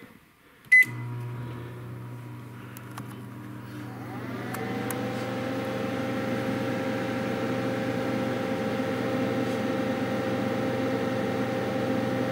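Panasonic inverter microwave oven beeps once as Start is pressed and begins running at power level 4. About four seconds in, a rising whine settles into a steady, louder hum.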